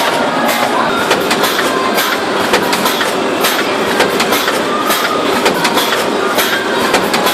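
Automatic shrink-wrap sealing-and-cutting machine and heat-shrink tunnel running: a steady rush of machine noise with many irregular sharp clacks.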